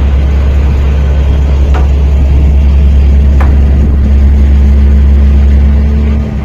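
Lattice-boom crane's engine running steadily while the crane works: a loud, even low drone with a steady hum above it, dropping away a little past six seconds in.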